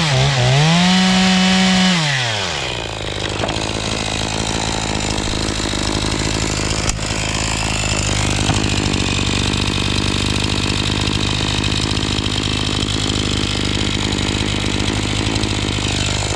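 Echo CS-490 two-stroke chainsaw, its carburettor retuned and muffler modified, running at full throttle with a quick dip and rise in revs, then dropping to idle about two and a half seconds in and idling steadily.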